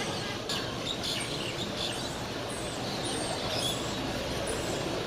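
A large flock of small birds twittering as it circles, with many short, high chirps and quick falling notes over a steady low background rumble.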